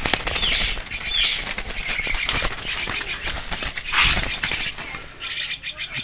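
A bird's wings flapping and fluttering in irregular bursts as it is caught and held in a hand, with a couple of short high calls about a second in.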